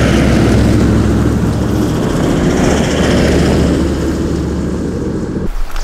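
Four-wheel drive driving past on a dirt road, its engine running and tyres on the gravel, fading as it moves away. The sound cuts off suddenly near the end.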